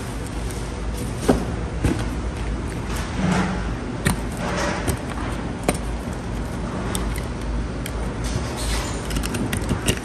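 Oyster being shucked with an oyster knife on a foam cooler lid: scattered sharp clicks and scrapes of the steel blade working against the shell, over a steady low hum.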